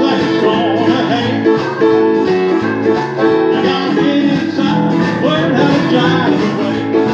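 Live blues boogie on electric guitar, with a man singing and a blues harmonica playing along.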